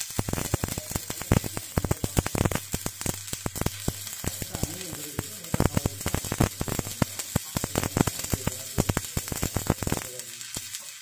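Stick (arc) welding: the arc crackles and sizzles steadily in dense irregular pops over a hiss and a low hum, easing off briefly near the end.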